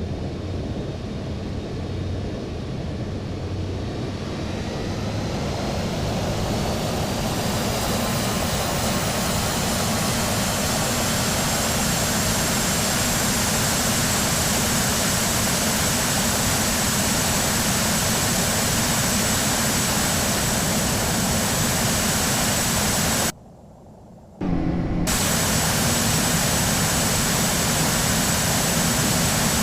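Airbus A319 jet engines running loud over a dense rushing noise. A high whine rises over the first several seconds, then holds steady. The sound cuts out abruptly for about a second, about 23 seconds in, then resumes.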